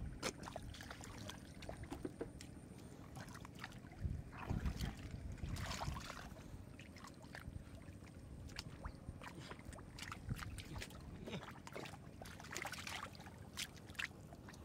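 Hands sloshing and splashing in shallow muddy paddy water while grabbing fish, with scattered small splashes and squelches of mud. A louder bout of splashing comes about four to six seconds in.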